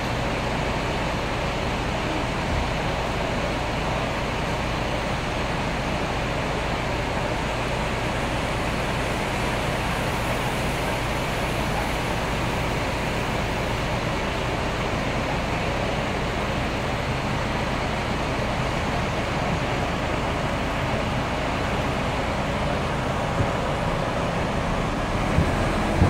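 Diesel coaches in a covered bus station: a steady engine hum and rumble echoing under the roof, growing louder near the end as a coach drives past close by.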